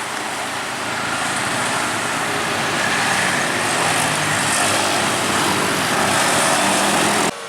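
A bus passing close by, its engine and tyres making a steady, loud road noise that swells over the first couple of seconds, then cuts off suddenly near the end.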